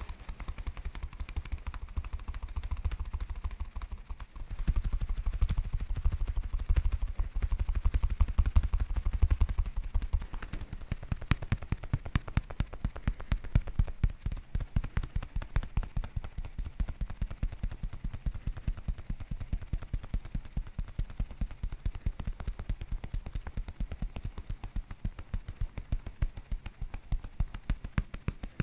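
Hands massaging a bare back and shoulder close to a sensitive microphone: a fast, even run of soft thuds and skin rubbing, heaviest in the first ten seconds.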